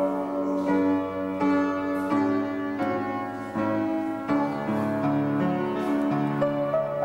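Upright piano played solo: sustained chords struck at an even, unhurried pace, about one every three-quarters of a second.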